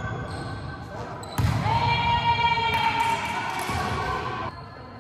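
A volleyball being hit and bouncing on a gym floor, with a long high-pitched call held for about two seconds starting shortly after a sharp hit around a second and a half in.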